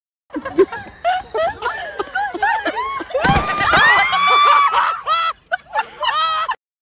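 Several people shouting, laughing and screaming, with a long high scream about three seconds in.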